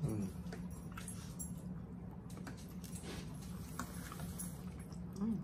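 Two people eating with forks: faint chewing and a few light clicks of forks on plates, with a short hummed sound from a mouth right at the start and again near the end, over a steady low hum.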